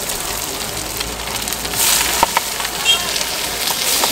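Food sizzling in a hot wok while a steel ladle scrapes and clinks against the pan. The sizzle surges about two seconds in, as vegetables and bean sprouts go into the hot oil.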